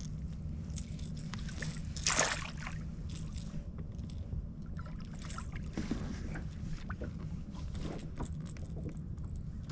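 Water sloshing and lapping around a small fishing boat over a steady low hum, with a short splash about two seconds in and a few lighter splashes after.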